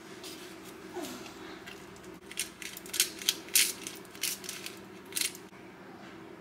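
Twist-top spice grinder being turned by hand over food, a quick run of crunchy grinding clicks from about two and a half seconds in to just past five seconds.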